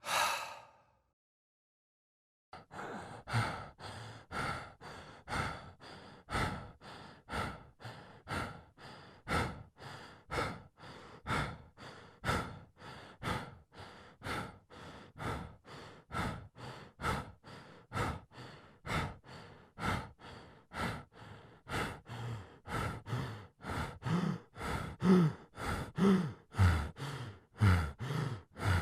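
A person breathing: one quick sharp breath, a short pause, then rapid heavy panting in and out about twice a second. The panting grows louder and more voiced, with a groan-like edge, near the end.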